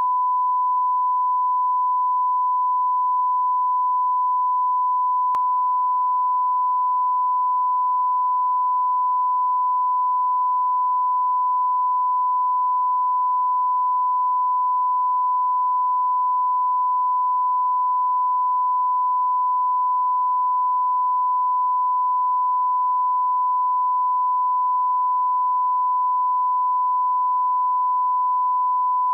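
Steady 1 kHz reference tone played with SMPTE colour bars at the head of a tape: one unbroken pure beep at a constant level. It is the line-up tone used to set audio levels before the programme starts.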